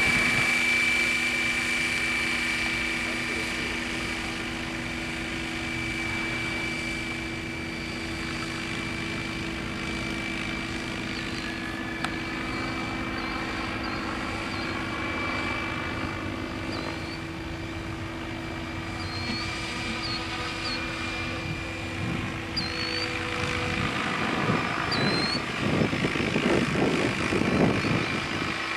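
Radio-controlled Tazer 800 helicopter in flight: a steady whine from its rotor and drive. In the last few seconds the sound grows louder and rougher, with a fluttering rotor sound as it passes closer.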